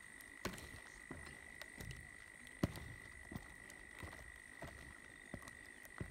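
Footsteps on the old, partly rotten timber sleepers of a steel railway bridge: about ten dull knocks at a steady walking pace, the loudest about two and a half seconds in. A steady high-pitched drone runs behind them.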